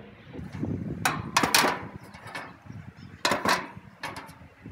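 Metal grill parts clanking and scraping as a cooking grate is set down over the heat shields of a Char-Broil gas grill, with a couple of sharper clanks about a second in and about three seconds in.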